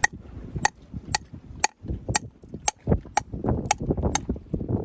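Conch shell struck again and again with a metal tool to open it: sharp, ringing knocks at a steady pace of about two a second.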